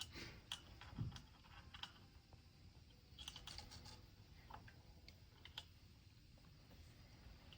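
Faint, scattered light clicks and taps of small metal parts of a Herman Miller Aeron three-paddle kit being handled as a spring hook is fitted into its hole, with a quick run of several clicks about halfway through.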